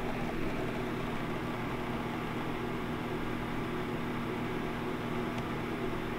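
A fan motor running with a steady hum over an even rush of air.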